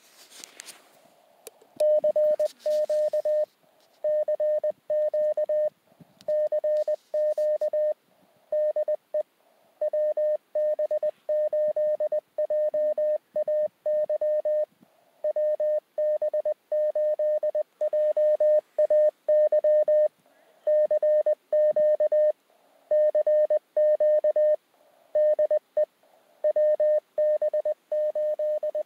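Morse code (CW) from a Mountain Topper QRP transceiver: a single steady tone of about 600 Hz keyed on and off in dots and dashes, starting about two seconds in.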